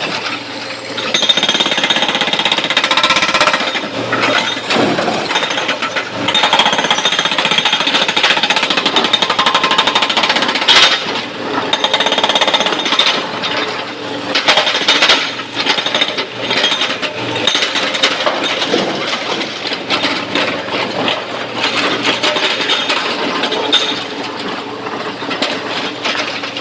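Hydraulic rock breaker on a SANY excavator hammering at rapid, continuous blows into quarry rock, with a few brief pauses as the chisel is reset.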